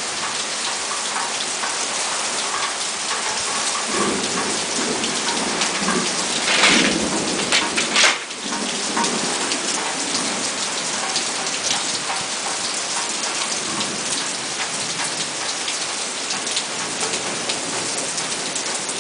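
Heavy rain pouring steadily onto pavement and grass in a thunderstorm, with thunder rolling in the middle, loudest about seven to eight seconds in.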